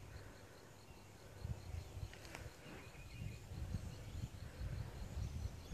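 Quiet rural outdoor ambience. A faint, evenly repeated high chirp, about five a second, fades out after the first second or two, while low rumbling noise on the microphone grows from about a second and a half in.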